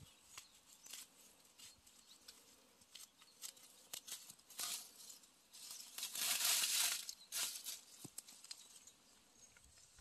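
Dry leaves and moss rustling, with scattered small crackles and a louder rustle lasting about a second around six seconds in.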